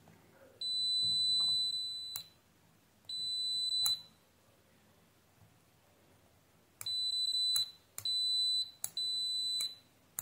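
Digital multimeter's continuity beeper giving a high, steady beep each time the microswitch's cleaned contacts conduct. There are two long beeps, a pause, then four shorter beeps in quick succession, with a click as each beep starts and stops.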